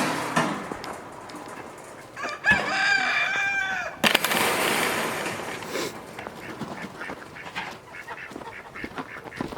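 A rooster crowing once, a single drawn-out call of about a second and a half, followed by a couple of seconds of rushing noise.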